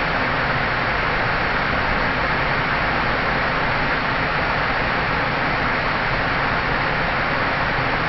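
Huai Mae Khamin waterfall in full flow at high water: a steady, loud rush of falling water.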